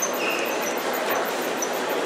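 Steady indoor shopping-centre hubbub: a constant wash of distant voices and echoing hall noise, with a few faint short high beeps.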